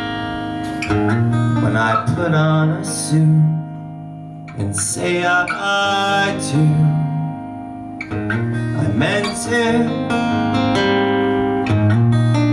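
Guitar playing an instrumental passage of a song, with picked notes and chords ringing on.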